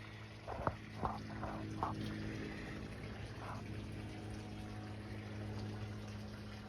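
Gulls calling: four short calls in quick succession starting about half a second in, then one more a couple of seconds later, with two sharp clicks among the first calls. A steady low hum runs underneath.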